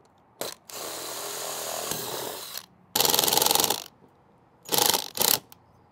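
A Ryobi cordless drill runs steadily for about two seconds, boring a pilot hole into the siding board. Then a Ryobi cordless impact driver hammers a screw through a metal mounting bracket in a louder burst of about a second, followed by two short bursts near the end as the screw is seated.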